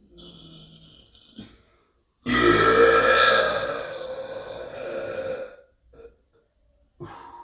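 A long, loud deliberate burp that lasts about three seconds, starting about two seconds in, loudest at first and then fading. A softer sound comes before it in the first second or so.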